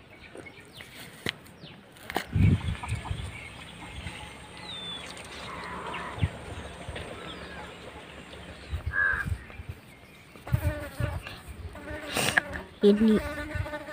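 Insects buzzing, with a few sharp knocks and rustles scattered through, the loudest about two seconds in and near the end.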